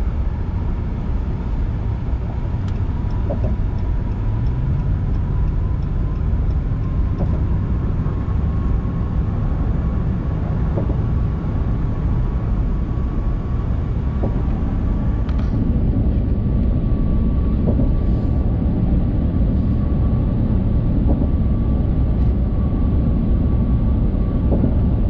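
Road noise inside a pickup truck's cabin at highway speed: a steady low rumble of tyres and engine with a faint steady whine above it, growing a little louder partway through.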